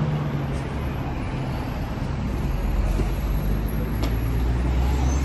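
Road traffic noise with a steady low engine hum from a heavy vehicle running close by.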